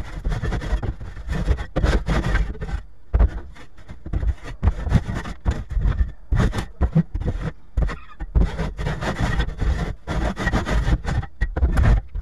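A long-handled garden tool scraping and dragging old coop litter and leaf debris across a wooden floor, with irregular scrapes and sharp knocks of the tool against the boards throughout.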